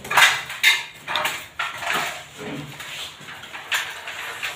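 Irregular clatter and short knocks of hand tools and electrical cable being handled during an air-conditioner wiring install, loudest about the first second.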